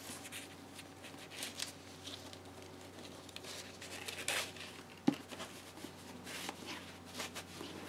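Faint handling noises as a hardcover book is worked into a fabric book sleeve: soft rustling of cloth and paper with small scattered clicks, a brief louder rustle about four seconds in and a light knock about five seconds in.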